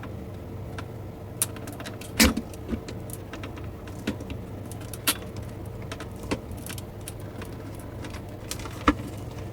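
Irregular sharp clicks and knocks from a cable clip and wire being tugged and pried at on a speaker panel, where the clip is stuck fast with glue. A steady low hum runs underneath.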